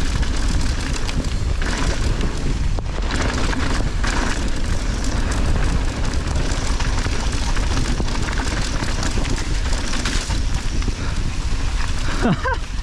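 Mountain bike riding down a wet, rocky trail: a steady rush of tyre noise and spray with many small knocks and rattles from the bike over the rocks, and heavy wind rumble on the microphone.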